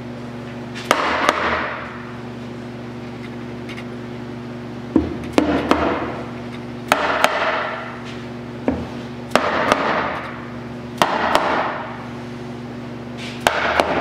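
A red mallet tapping the aluminium case half of a Polaris Scrambler 1000 transmission down over its shafts, seating it on the bearings. About a dozen sharp knocks come in clusters of one to three, every second or two.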